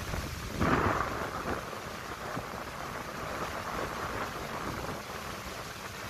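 Wind blowing through the leaves of pine and broadleaf trees, a steady rustle that swells into a stronger gust about a second in, with a low rumble of wind on the microphone underneath.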